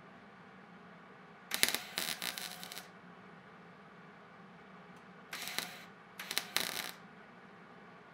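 Electric arc welder laying three short tack welds on thin sheet steel, each a brief crackling buzz: a longer one about a second and a half in, then two short ones close together near the end. Tacks are kept short, with pauses between them, so the heat does not warp the sheet metal.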